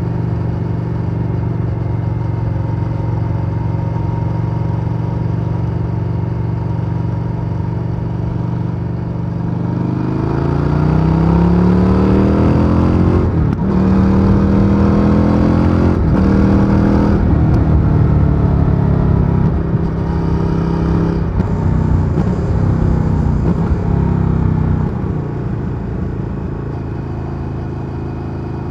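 Stock exhaust of a 2023 Indian FTR Sport's 1,203 cc V-twin heard onboard while riding: it cruises steadily, then the revs climb about ten seconds in as the bike accelerates. There is a brief break before it holds higher revs, and it drops back a few seconds from the end.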